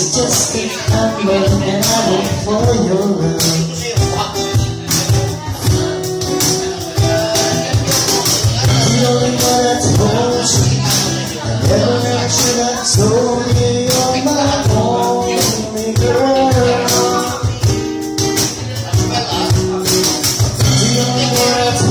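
Live acoustic band playing, with a woman singing into a handheld microphone over a steady rhythm of shaken and struck hand percussion.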